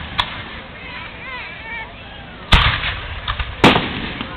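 Aerial fireworks shells bursting: a sharp pop just after the start, then two loud booms about a second apart in the second half, with a few lighter cracks around them.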